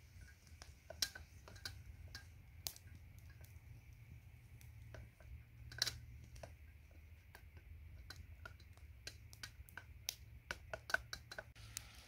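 Sharp clicks and light knocks at irregular intervals, the strongest about one second and six seconds in, with a quick cluster near the end, over a faint low hum.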